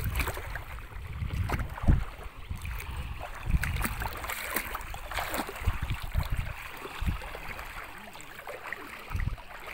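River water sloshing and splashing, with a few sharp splashes and irregular low rumbles of wind on the microphone.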